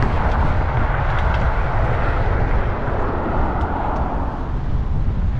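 Wind buffeting the microphone of a road bike riding into a headwind: a heavy low rumble under a rushing noise that swells and then fades about four seconds in.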